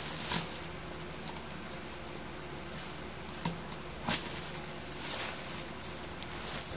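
A few short, soft knocks and rustles from objects being handled, over a steady background hiss.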